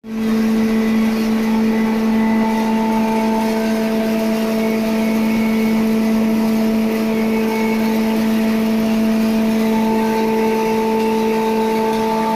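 Belt-driven hammer mill with a three-phase electric motor running steadily while grinding maize: a loud, even hum with higher overtones over a rushing noise.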